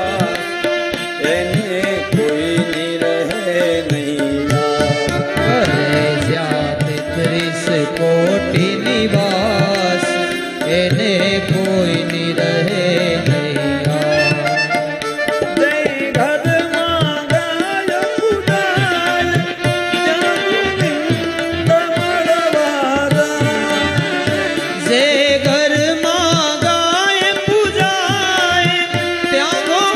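Instrumental interlude of a Gujarati devotional bhajan: a violin plays a gliding, ornamented melody over a tabla rhythm. The tabla becomes much more prominent about halfway through.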